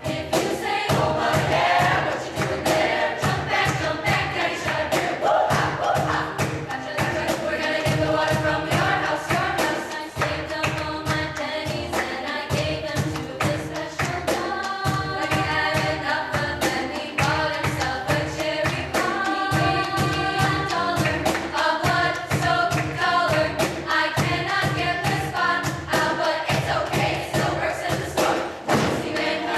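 A choir singing in harmony over a steady beat of thumps.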